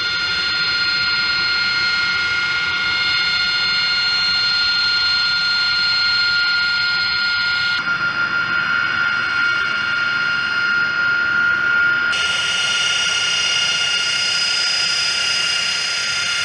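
AV-8B Harrier II jet engine (Rolls-Royce Pegasus turbofan) running at taxi power: a loud, steady, high-pitched turbine whine over a rushing rumble. The whine changes abruptly in tone about halfway through and again near three-quarters of the way.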